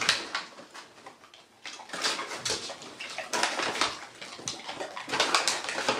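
Dogs crunching and chewing firm chicken jerky treats: irregular crisp crunches, sparse at first and busier from about two seconds in.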